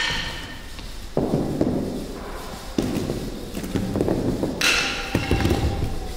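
A series of dull, heavy thuds, each trailing off in echo, with a bright metallic ring struck about four and a half seconds in.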